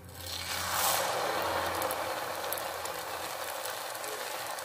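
Achappam batter on a rosette mould sizzling as it is dipped into hot oil: the sizzle swells quickly about a second in, then goes on as a steady crackling fry.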